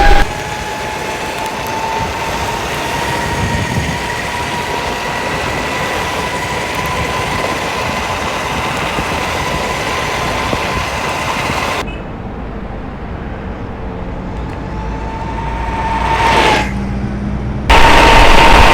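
Flipsky Lightning electric skateboard riding: a steady electric motor whine drifting slowly in pitch with speed, over the rumble of the wheels on the pavement. About twelve seconds in the sound turns duller and quieter, the whine rising again before it cuts back to the full, louder ride sound near the end.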